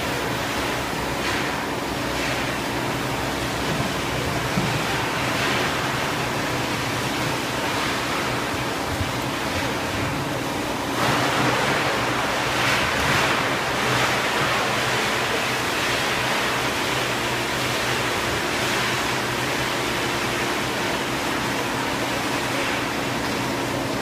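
Large injection molding machine running: a steady hum with a rushing hiss over it, the hiss growing louder for a few seconds about halfway through.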